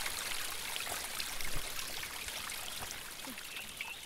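Steady outdoor rushing noise with light scattered crackles, slowly getting quieter.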